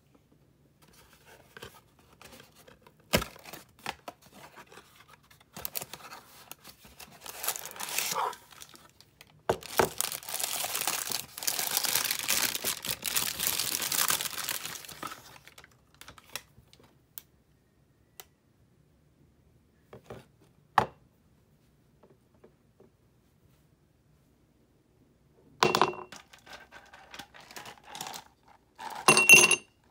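Kraft packing paper crinkling and tearing as a wrapped drinking glass is unpacked, densest for about five seconds in the middle, with a few sharp clicks. In the last few seconds, ice cubes clink as they are dropped into the glass.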